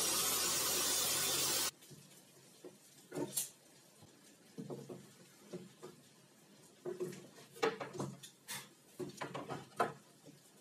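A homemade table saw running steadily, then stopping abruptly about a second and a half in. After that come scattered knocks and clatter of metal bar clamps and wooden boards being set down and handled on its wooden table top.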